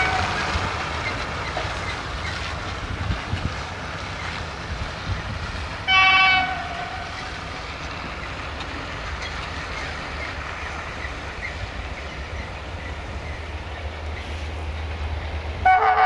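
Air horn of a CFR class 65 diesel-electric locomotive: one short blast about six seconds in, then a long, louder blast beginning near the end as the train draws close. A steady low rumble runs underneath and grows as the locomotive approaches.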